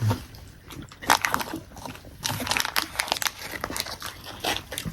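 Irregular crinkling and crunching of a snack bag and cookies being handled, a burst of sharp crackles now and then.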